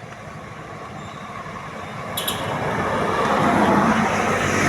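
A bus approaching, its engine and road noise growing steadily louder, with the engine's low drone coming up strongly near the end. A couple of brief high ticks about two seconds in.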